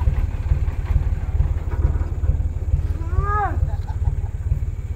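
Diesel engine running close by with a steady, rapid low throb. A man's short call rises and falls in pitch about three seconds in.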